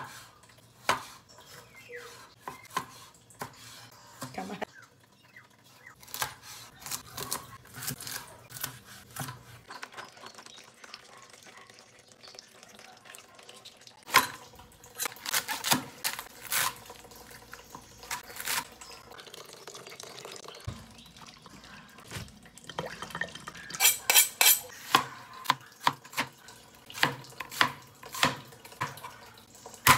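Cleaver chopping tomatoes and onion on a plastic cutting board: irregular knocks of the blade against the board, with a quick run of chops about two-thirds of the way through.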